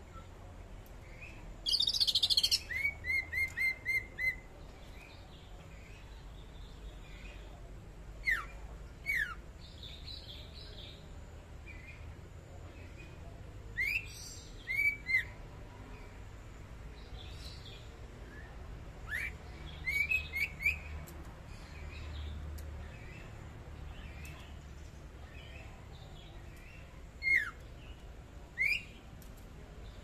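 Greater green leafbird (cucak ijo) singing in short bouts: a loud burst of rapid chatter about two seconds in, then a quick string of about six notes, followed every few seconds by sharp slurred whistles that drop in pitch.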